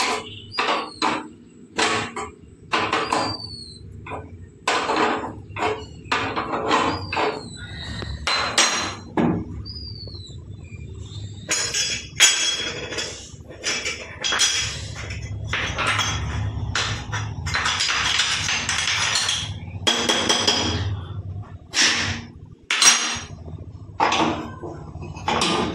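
Metal parts of a gas cooktop being handled: repeated clanks, taps and knocks as burner pieces are lifted and set down, with a longer stretch of rubbing and scraping in the middle.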